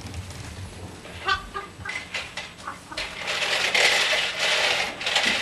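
Gift wrapping paper rustling and crinkling, getting denser and louder near the end. About a second in there are a few short, high squeaky sounds.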